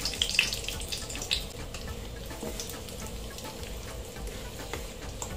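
Cumin seeds and dried red chillies sizzling in hot ghee in a frying pan. Sharp crackles in the first second or so thin out into a softer, steady sizzle, with a wooden spatula stirring them later on.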